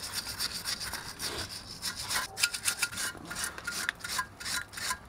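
Repeated scraping and rubbing strokes on metal, irregular and fairly quick, at the rusty rear wheel hub mounting.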